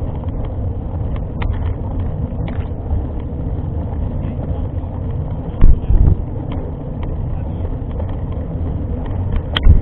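Mountain bike riding over a rough trail: a steady low rumble with scattered clicks and rattles, and a couple of heavy jolts about six seconds in.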